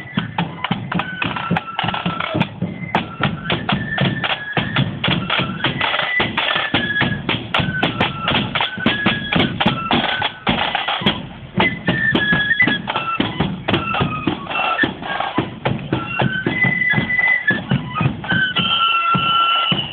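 Marching flute band playing a tune: flutes carrying the melody over a steady, rapid drum beat.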